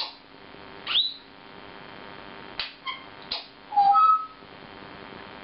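African grey parrot making short whistles and clicks: a quick rising whistle about a second in, then a few sharp clicks, and two short whistled notes about four seconds in, the second higher and the loudest.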